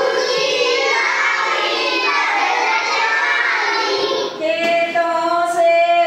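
A class of young children chanting a Hindi action poem together in a drawn-out sing-song tune. A short break comes about four seconds in, followed by one long held note.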